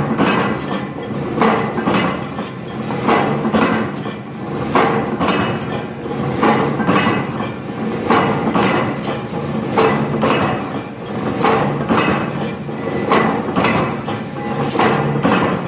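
Eye hook bending and threading machine running through its cycle, with repeated knocks at an uneven pace, roughly one a second, over a steady mechanical clatter.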